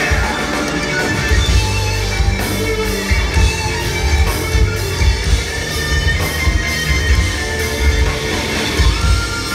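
Live progressive metal band playing loud and steady, with electric guitar, bass and drums, heard from within the crowd.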